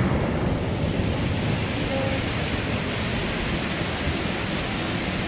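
Waterfall: falling water making a steady, dense rushing noise.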